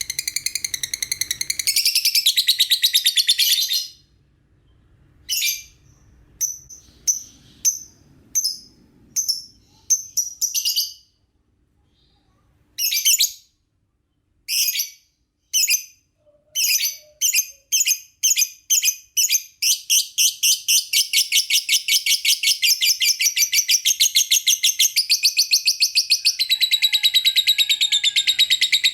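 Lovebird chirping in high, sharp notes: a dense burst of rapid chirps, then single chirps spaced apart that come faster and faster until they run together into a long, fast, continuous chatter in the second half.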